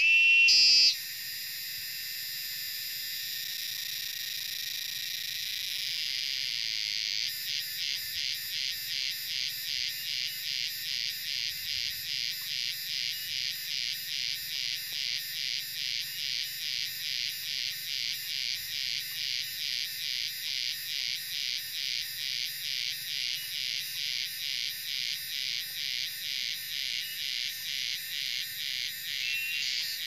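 Gareng cicadas calling: a continuous high, shrill drone that, about seven seconds in, settles into an even pulsing of about two beats a second. In the first second a brief, louder high call stands out.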